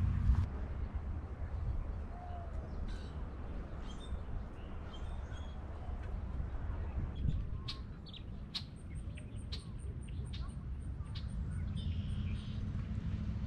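Wild birds chirping and calling, with a quick run of high repeated notes at about five a second in the second half, over a steady low rumble.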